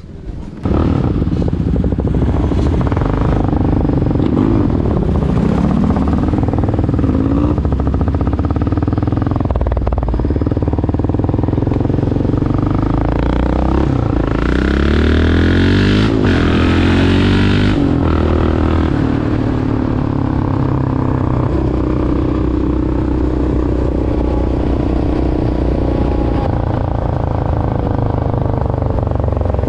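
Yamaha Raptor 700R quad's single-cylinder four-stroke engine running under way, its pitch rising and falling again and again with throttle and gear changes, louder for a few seconds in the middle.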